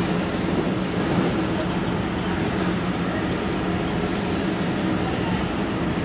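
BTH-550 overwrapping machine and BM-500L shrink tunnel line running, with its roller conveyor carrying wrapped gift boxes out. It makes a steady mechanical hum with a low drone and an even hiss.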